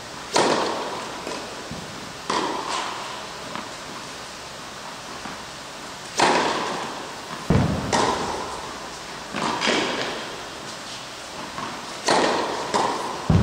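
Tennis serves: a racket strikes the ball sharply three times, about six seconds apart, each hit ringing on in the hall's echo. Further sharp ball impacts fall in between.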